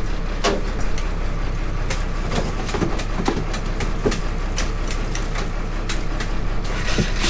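Crab boat's engine running steadily, with scattered knocks and clatter as a wire crab pot is handled at the rail.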